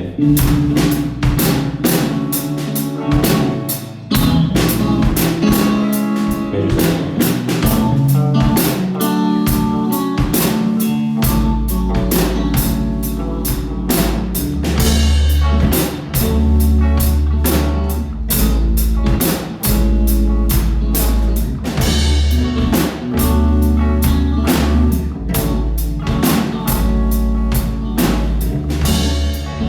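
A rock band playing a song live: drum kit with fast, dense hits, electric guitar chords, and low bass notes that come in about eleven seconds in.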